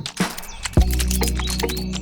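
Background music with a steady sustained bass, which drops out briefly near the start and comes back a little under a second in, with sharp clicks and taps over it.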